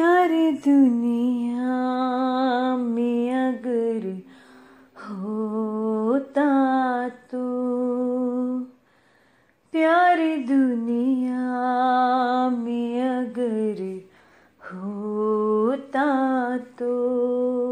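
A woman singing a slow, mournful melody unaccompanied, in long held notes, in four phrases with short breaths between them.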